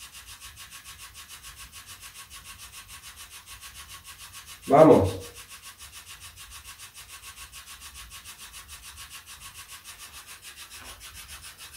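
Spirit box radio scanner sweeping through frequencies: a steady hiss of static chopped into a fast, even pulse several times a second.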